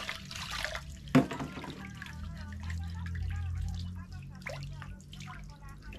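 Water poured from a plastic bowl over wet locs, splashing and dribbling down into a basin of water as the hair is rinsed, with one sharp clack about a second in.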